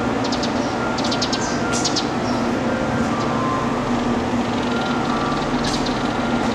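Railway station platform ambience: a steady low mechanical hum with a few short, high clicks.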